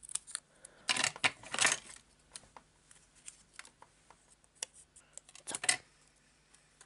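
Cardstock and craft tools handled on a cutting mat: a few short paper rustles about a second in, light ticks and taps, and another brief rustle near the end.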